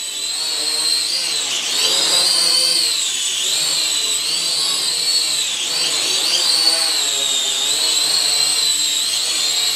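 San Huan SH5W toy quadcopter flying, its small motors and propellers giving a high whine that swells in at the start and keeps rising and falling in pitch as the throttle and sticks are worked.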